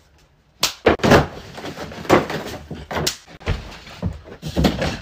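Bare feet stomping and thumping on the floor in a wild dance: an irregular run of thumps and bangs, starting about half a second in.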